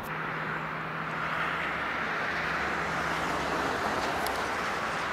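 A road vehicle passing, its tyre and road noise swelling and then easing, over a steady low hum.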